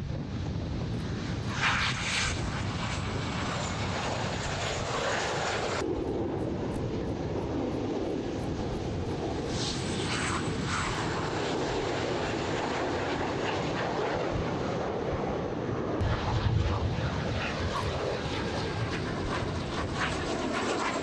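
Dassault/Dornier Alpha Jet twin Larzac turbofan engines running: a continuous jet rush with a faint high whine.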